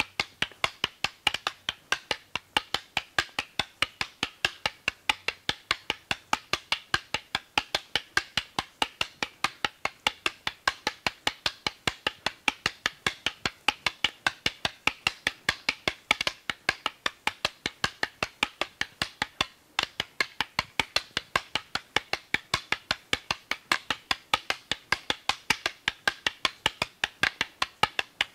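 Eskrima sticks clacking stick on stick in a fast partner drill: a steady run of sharp wooden knocks, about four to five strikes a second, without a break.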